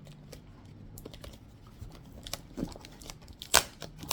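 Cardboard shipping box and its packing tape being handled and pulled open: scattered small clicks and rustles, with one sharp loud crackle near the end.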